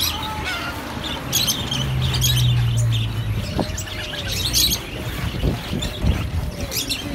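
Many small caged birds, budgerigars among them, chirping and twittering in repeated bursts, with a steady low hum for about a second and a half near the middle.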